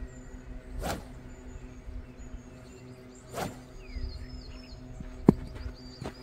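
A golf club swung through the air with two swishes, about a second in and about three and a half seconds in, then a single sharp click near the end, the loudest sound. Steady background music and faint bird chirps run underneath.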